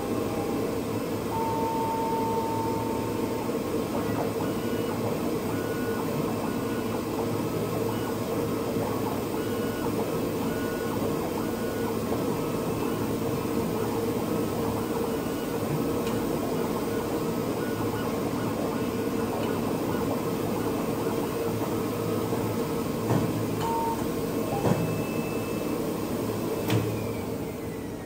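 P5035DC flatbed die cutter cutting and creasing a sheet: a steady hum from its vacuum air pump, with the head's stepper motors whining in short tones that step up and down in pitch as it moves. A few sharp clicks come near the end, and the running sound falls away just before the end.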